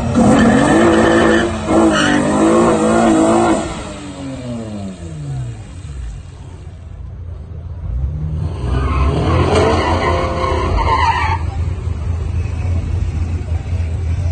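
Drag-race launch: the J37 3.7-litre V6 in a swapped Honda Accord and another car at full throttle, engine notes climbing with an upshift about two seconds in, then falling in pitch and fading as the cars pull away down the strip. From about eight seconds another stretch of hard acceleration rises and cuts off abruptly near eleven seconds, over a steady low rumble.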